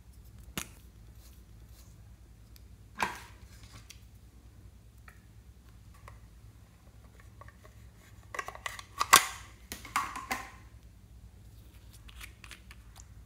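Small plastic cosmetic containers, a pink cosmetics case and a nail polish bottle, handled and opened by hand: a sharp click about half a second in, another about three seconds in, then a cluster of clicks and rattles about eight to ten seconds in.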